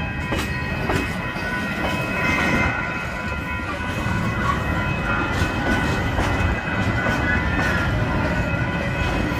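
Freight train of container flat wagons rolling past at a level crossing: a steady rumble with clacks of the wheels over the rail joints, and steady high-pitched tones above it.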